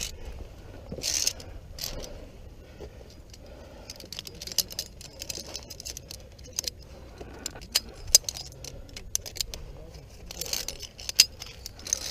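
Metal via ferrata carabiners clinking and rattling against the steel safety cable and each other as a climber moves up the rock: a string of sharp, irregular clinks, with a couple of brief scraping rustles.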